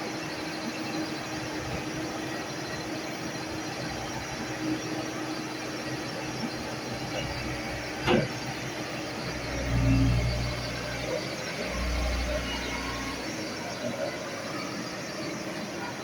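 Excavator at work: steady engine noise with a sharp metal clank about eight seconds in, then two deep surges of engine rumble a couple of seconds apart.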